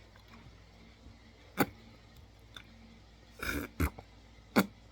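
A few sharp, isolated clicks from handling things close to the microphone, with a brief noisy burst a little past the middle.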